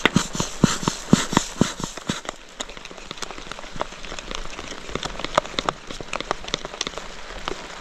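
Salt being shaken from a plastic bottle, about four rhythmic shakes a second, stopping about two seconds in. Then scattered drips of rain tick on the tarp overhead, with a faint steady patter.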